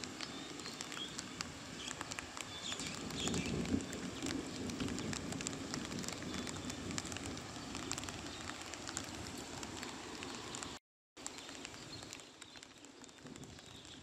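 Light rain falling, drops pattering and ticking on surfaces, with faint bird chirps. The sound cuts out for a moment about eleven seconds in and is a little quieter after.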